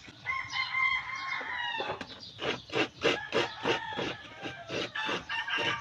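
A rooster crows once, a long held call that drops in pitch at the end, followed by chickens clucking rapidly and repeatedly.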